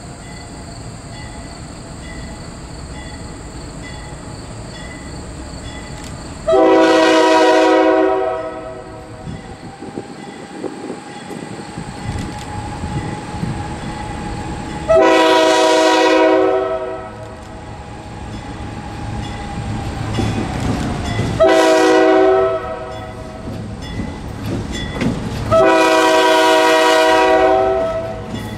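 Air horn of a GE C40-8 diesel locomotive sounding the grade-crossing signal as the train approaches: two long blasts, a short one, then a long one. The rumble of the locomotives' engines and wheels grows louder near the end as the lead unit reaches the crossing.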